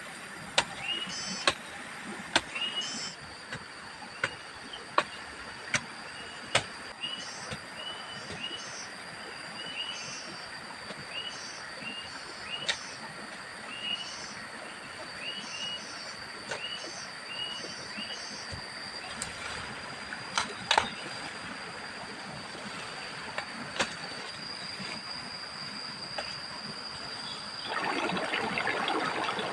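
Outdoor ambience with a bird repeating a short rising chirp about once a second over a steady high-pitched insect drone, with sharp knocks at irregular intervals. Near the end a louder rushing noise starts.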